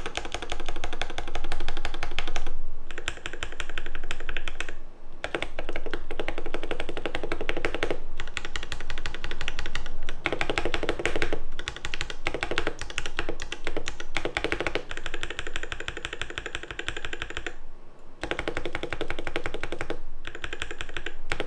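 Fast typing on a mechanical keyboard with lubed Alpaca linear switches: dense runs of keystroke clacks broken by several short pauses.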